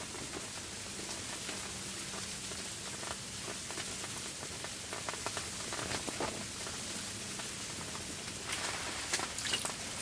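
Falling snow pattering in a steady hiss, with a cluster of sharper ticks near the end.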